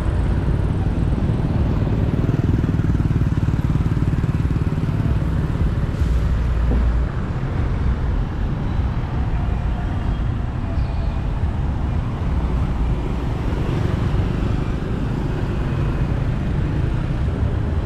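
Steady low rumble of a road vehicle in motion, with road and traffic noise, easing slightly about seven seconds in.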